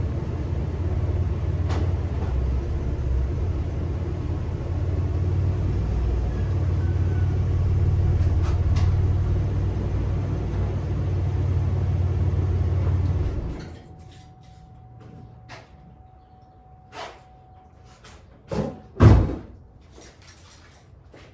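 A car engine runs with a steady low rumble and cuts off suddenly a little past halfway. After a short quiet spell a thin steady tone sounds for a few seconds, then two loud thumps come close together, like a door being shut.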